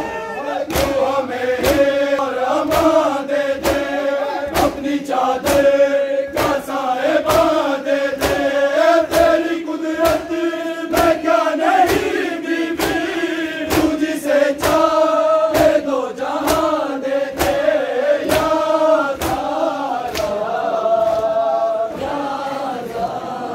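A crowd of men chanting a mourning lament (noha) in unison, with a steady beat of palms slapping chests (matam), a little under two slaps a second.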